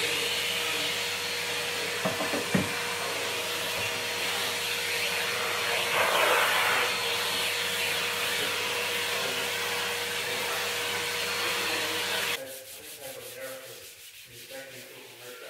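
Pink Numatic Hetty cylinder vacuum cleaner running steadily as its nozzle is worked over the bottom of a kitchen drawer, with a couple of sharp knocks of the nozzle against the drawer about two seconds in. The motor cuts off about twelve seconds in, leaving faint rubbing as the drawer is wiped by hand.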